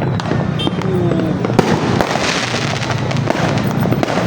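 Aerial fireworks bursting: several sharp bangs, one at about a second and a half in and another just after, followed by a spell of crackling, over a steady din of distant fireworks and voices.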